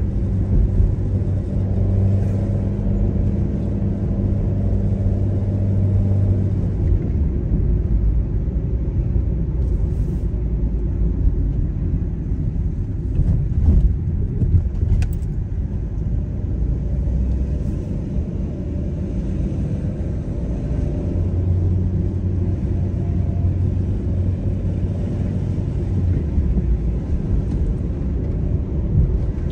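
A car being driven along a city street: steady low road rumble with an engine hum that stands out for the first several seconds, fades, and returns later on.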